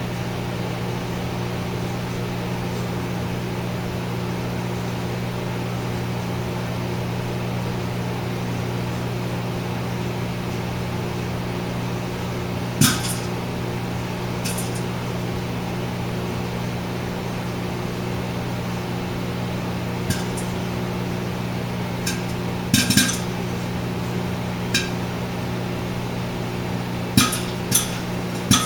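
Microwave oven running with a steady hum while popcorn kernels heat in a microwave popcorn popper; the first sharp single pops come about halfway through, then more of them, closer together, toward the end as the kernels start popping.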